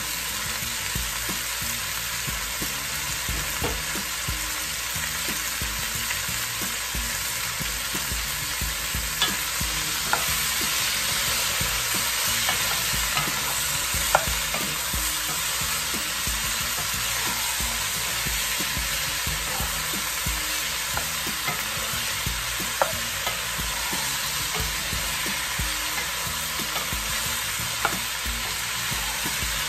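Diced squash, potato and zucchini sizzling steadily in a large pot as a wooden spoon stirs them, with a few sharp knocks of the spoon against the pot.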